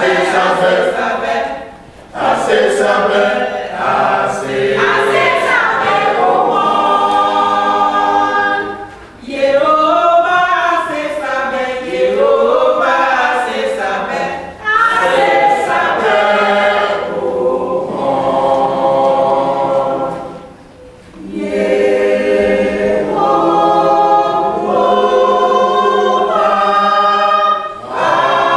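Mixed choir of men's and women's voices singing a cappella in full harmony, with short breaks between phrases.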